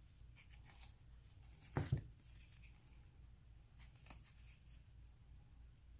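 Quiet handling of game cards and components: faint rustles and ticks, with a low double thump just before two seconds in and a small click a little after four seconds, over a faint steady low hum.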